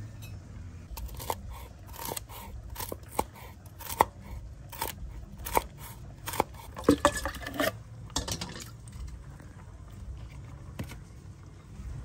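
Knife chopping fresh red chillies on a wooden chopping board: sharp, uneven knocks of the blade on the board, about one or two a second, with a quick run of cuts a little past the middle. The chopping thins out over the last few seconds.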